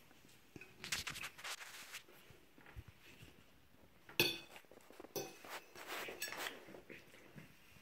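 Chopsticks clicking and scraping against ceramic plates of pasta: a scatter of light clinks, the sharpest about four seconds in.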